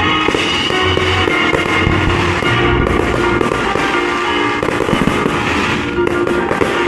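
Classical music playing loudly and steadily, with fireworks going off over it: aerial shells bursting with several sharp cracks and pops.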